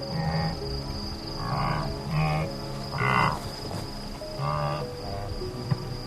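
Background music layered with nature sounds: a steady high trill and about five short pitched animal calls spaced irregularly.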